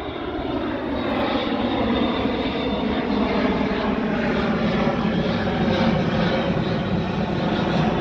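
Airbus A400M four-engine turboprop military transport flying low overhead: a steady, loud drone of its engines and propellers, the pitch easing slightly downward as it passes.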